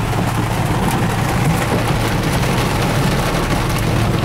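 Heavy rain pelting a vehicle's roof and windshield, heard from inside the cabin over the steady hum of its engine.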